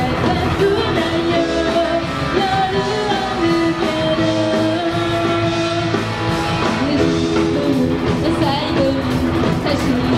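Live rock band playing Japanese-style pop music: electric guitars and a drum kit with sung vocals carrying a held, gliding melody over the steady band.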